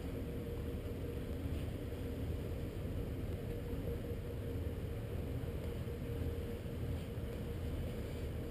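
Cabin cruiser's engines running slowly, a steady low rumble with a faint steady hum above it.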